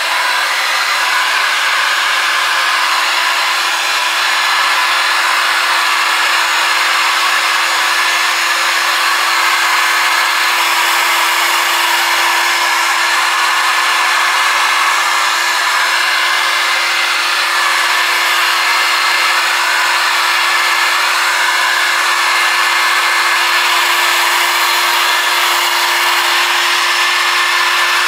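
Heat gun running steadily, blowing hot air to dry screen-printing ink on a t-shirt: a constant rush of air with a steady hum beneath it.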